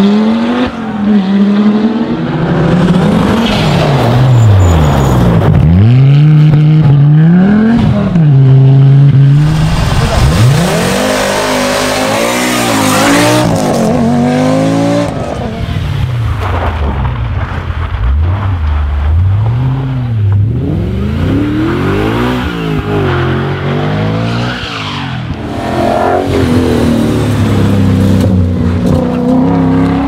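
Audi quattro rally cars' turbocharged five-cylinder engines at full throttle, revving up and dropping back through the gears again and again. There are a few seconds of loud rushing noise about a third of the way in.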